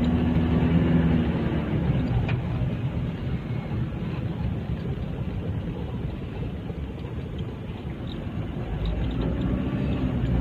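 Vehicle engines running in slow traffic. A steady engine hum is heard in the first second or two, then a low, even rumble.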